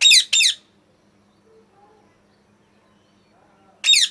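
Indian ringneck parrot giving loud, sharp screeches that fall in pitch: two in quick succession at the start and one more near the end, with a quiet pause between.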